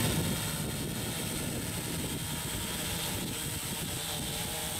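Walkera Voyager 3 quadcopter's motors and propellers humming steadily as it flies overhead.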